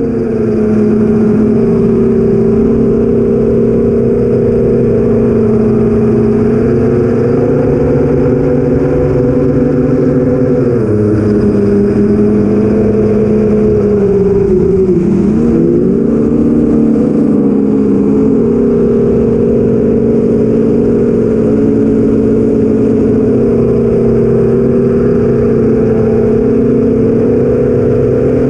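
Four BrotherHobby Avenger 2812 1115kv brushless motors driving 8-inch Master Airscrew props on an FPV drone in flight: a loud, steady buzzing hum whose pitch drops and recovers about ten seconds in and again around fifteen seconds in.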